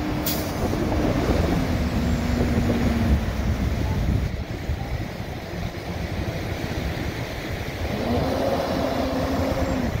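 Tow truck engines running during a recovery on wet sand. The engine note steps down over the first few seconds and rises again near the end, and there is a short air-brake hiss just after the start.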